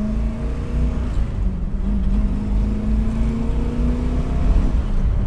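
1967 Chevy Nova's small-block V8 under way at a gentle, steady cruise, running smoothly, its note wavering a little and easing briefly near the end.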